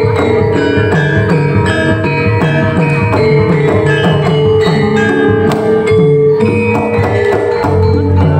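Javanese gamelan playing dance music: bronze metallophones strike a quick, repeating melody over a steady hand-drum beat, with a long ringing note held underneath.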